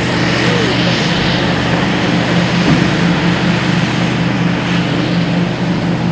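Diesel engines of a Hitachi EX8000-6 mining face shovel running under steady load, a droning hum with an even pulsing beat. A rushing hiss rides over it for the first second or so.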